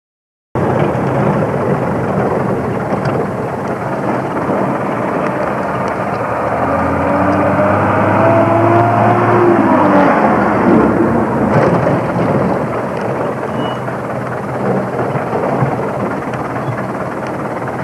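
Driving noise heard from inside a vehicle on a rough dirt mountain road: a steady rumble of engine and tyres. Between about seven and ten seconds in, an oncoming truck's engine passes close by, its pitch rising and then falling.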